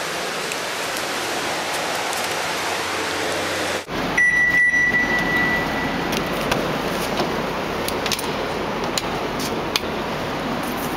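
Steady hiss of handling and room noise, then after an abrupt break a single high electronic beep lasting under two seconds, followed by scattered clicks and knocks as someone gets into a car.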